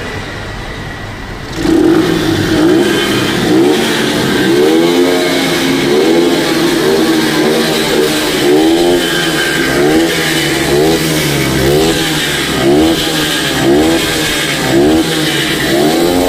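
TVS Sport's 110 cc single-cylinder engine, fitted with a modified open air filter, idling and then revved hard about two seconds in. It is blipped over and over after that, the pitch rising and falling about once a second, echoing inside a tunnel.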